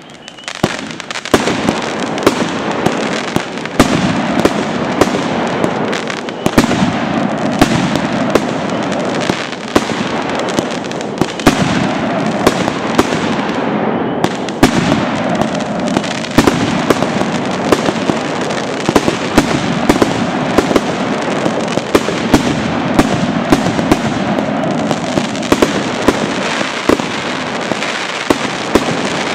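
A LIDU 49-shot firework cake firing continuously, starting about a second in. A rapid stream of launch pops and bursts runs over dense crackling, with sharp, louder salute bangs scattered through it.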